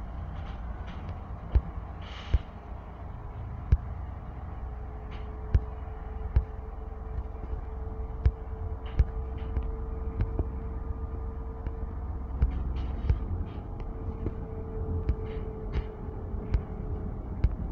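Interior of a moving Ikarus 280 articulated diesel bus: a steady low engine and road rumble, with irregular sharp knocks and rattles from the body and fittings as it rides over the road surface. A faint steady whine comes in about four seconds in and fades near the end.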